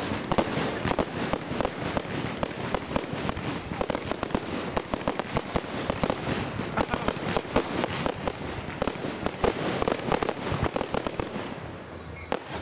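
Fireworks display: a dense, continuous barrage of bangs and crackling, easing off near the end.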